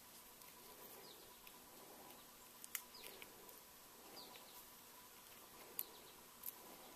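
Near silence, with faint short scrapes and a few sharp ticks as a step drill bit is twisted by hand in the hole of a plastic pulley, shaving the hole's edges clean.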